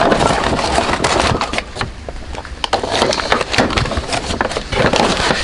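Brown paper shopping bag being handled close up, rustling and crinkling in quick, irregular crackles.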